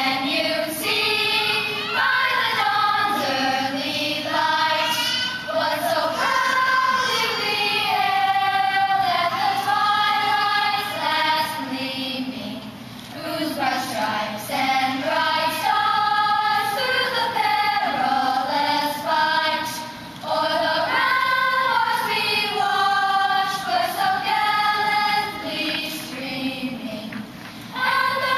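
Children's choir singing an anthem, phrase by phrase with short breaks for breath between the lines.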